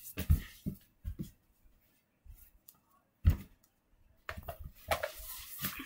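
Handling noise from hands and body moving on the carpet close to the microphone: a few dull thumps, the loudest about three seconds in, then rustling near the end.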